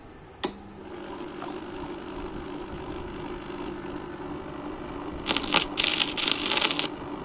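Vintage HMV three-speed record player switched on with a sharp click about half a second in, after which the player hums steadily while the turntable spins. From about five seconds in, the tonearm is lowered and the stylus meets the record, giving loud, broken scratchy noise.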